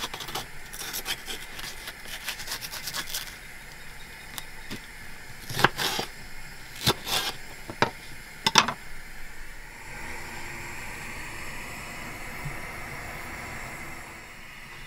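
Knife cutting a red pepper on a plastic chopping board: a quick run of light taps, then several single sharp knocks of the blade on the board. About two-thirds of the way through, a steady hiss takes over, from a pan of potatoes parboiling on a gas hob.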